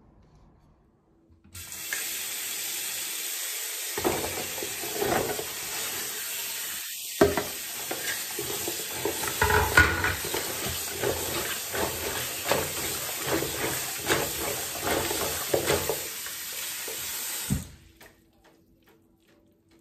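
Kitchen tap running into a plastic basin of runner beans in a sink, with irregular splashing and rustling as a hand swishes the beans through the water. The running water starts about a second and a half in and stops abruptly near the end.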